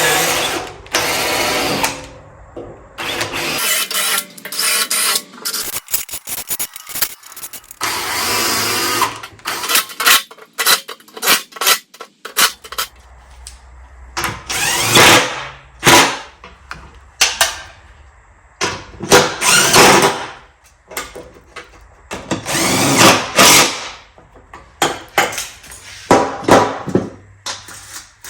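Handheld power drill running in many short bursts, its pitch rising as it spins up and falling as it stops, with quieter gaps between.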